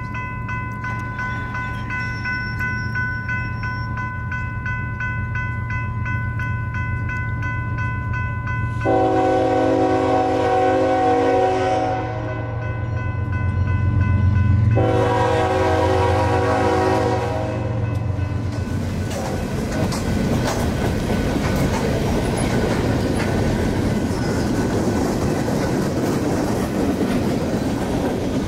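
Railroad crossing bell ringing steadily over the low rumble of an approaching diesel freight train. About nine seconds in, the locomotive horn sounds two long blasts, and from about nineteen seconds the freight cars pass close by, their wheels rumbling and clattering on the rails.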